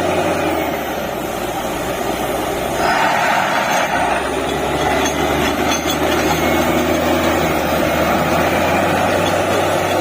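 Truck-mounted DTH borewell drilling rig running: a steady heavy diesel engine hum under a broad mechanical noise that grows a little louder about three seconds in.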